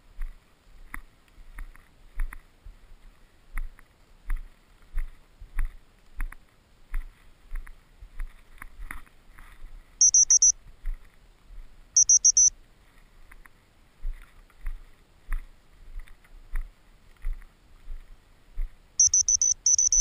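Footsteps through tussock grass at a steady walk, about one and a half steps a second. Short bursts of high electronic beeping come about ten and twelve seconds in and again for about a second near the end, louder than the steps.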